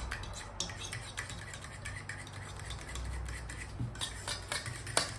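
A fork stirring runny kefir batter in an enamel bowl, with quick, irregular clinks and scrapes of the tines against the bowl.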